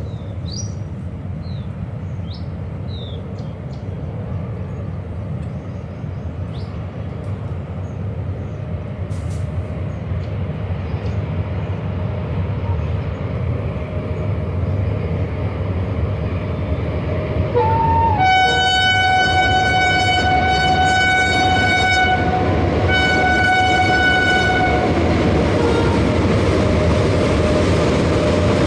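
A WAG9 electric locomotive hauling petrol tank wagons rolls across a bridge, its steady rumble growing louder as it approaches. About two-thirds of the way in it sounds its horn twice: a long blast that opens with a brief higher note, then a shorter second blast.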